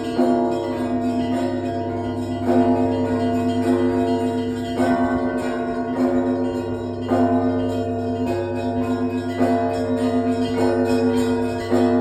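Russian Orthodox church bells ringing from a monastery bell tower: several bells struck together in a steady rhythm, about one stroke every second and a bit, each stroke ringing on into the next over a steady low hum.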